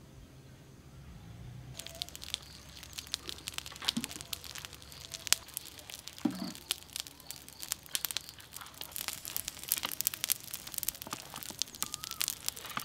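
Whole crocodile roasting on a spit over glowing charcoal, the fire and meat crackling with many sharp pops, starting about two seconds in.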